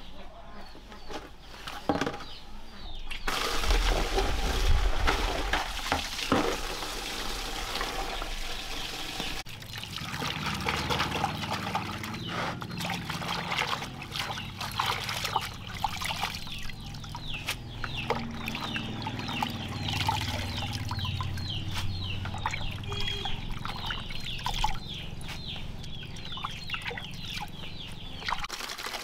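Water splashing and sloshing in a plastic basin as hands swish and rinse lettuce leaves in it. A stretch of steady running or pouring water comes a few seconds in, before the splashing.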